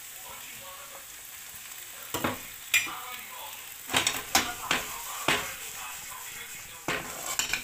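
Onions, mushrooms and vegetarian meatballs sizzling in a nonstick frying pan as they are stirred, with a string of sharp knocks and scrapes against the pan starting about two seconds in.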